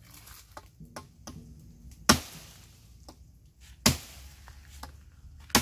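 Sticks of firewood being chopped in two with a blade: three sharp chops spaced less than two seconds apart, with lighter knocks and clicks between them.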